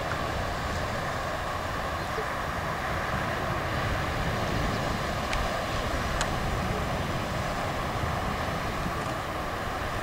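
Steady wind rumbling over the camera microphone, with the sea rushing in the background. Two faint ticks about halfway through.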